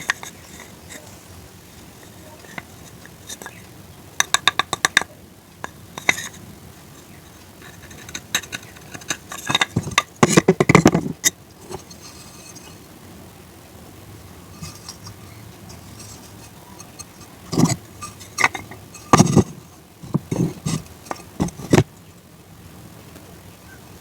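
Close-up eating sounds in short bursts with pauses: crunchy bites and a utensil clinking against a dish.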